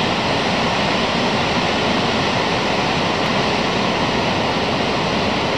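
A large waterfall's falling water, heard as a steady, even rushing noise with no breaks.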